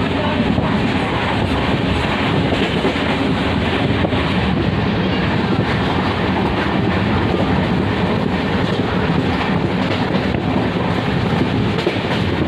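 Train running over the rails through a scissors crossing: a steady rumble of the wheels, with the clickety-clack of wheels passing over the rail joints and crossing points.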